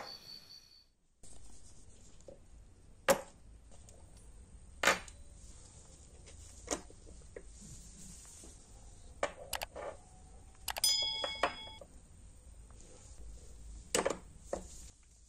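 Small nickel-plated brass Gillette safety razor parts being set down and clicked against a wooden workbench, a handful of separate sharp taps. Around the middle there is a quick cluster of metal clinks with a brief ringing tone.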